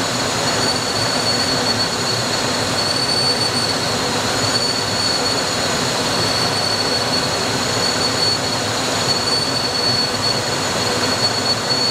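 Cabin noise of an HU-25C Falcon twin-turbofan jet in cruise flight, heard in the cockpit: a loud, even rush of airflow and engine noise with a high, steady whine over it.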